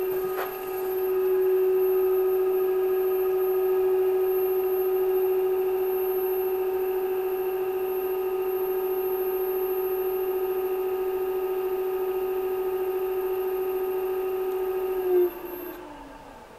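Electric scooter rear hub motor spinning unloaded at about 40 km/h, giving a steady pitched whine with a faint high-pitched whine above it. Near the end a brief louder jolt comes, then the whine falls in pitch and fades as the wheel coasts down.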